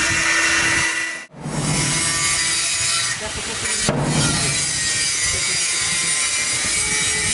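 A steady rasping, scraping noise, broken off for a moment just over a second in.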